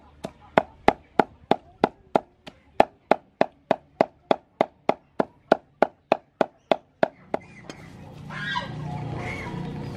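Meat cleaver chopping raw pork on a thick round wooden chopping board, steady strokes about three a second, mincing it; the chopping stops about seven seconds in. Bird calls follow near the end.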